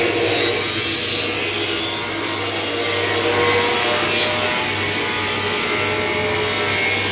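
Electric blower on a rice-husk-fired furnace running steadily, a low motor hum under a rush of air, then switched off abruptly at the very end.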